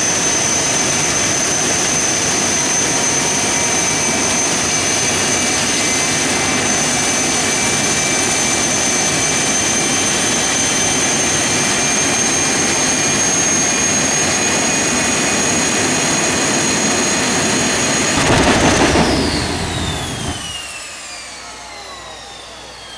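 Jet dragster's turbine engine running steadily with a high whine. About 18 seconds in there is a louder burst, then the turbine winds down with falling whines. This is the engine failure that is called "some kind of an explosion".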